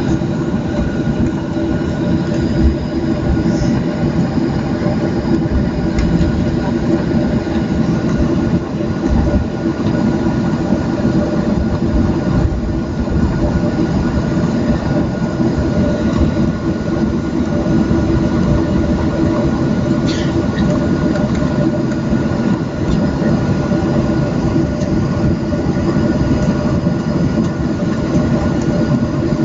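Inside the cabin of a Boeing 737-700 on the ground: a steady drone of its CFM56 turbofan engines with a continuous whine, over a low rumble from the aircraft rolling on the pavement.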